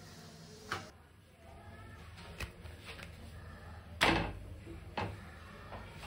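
A few scattered wooden knocks and clicks from a rolling pin and a wooden board being handled while flatbread dough is rolled out. A louder thump comes about four seconds in.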